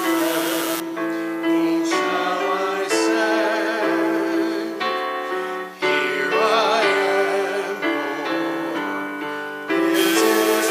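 Church music: a hymn played on a keyboard, with sung voices holding long notes with vibrato. The chords change about every second.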